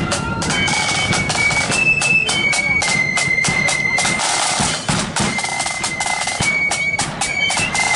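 Marching flute band playing: shrill flutes carrying a high melody in held notes over snare drums and a bass drum beating the march.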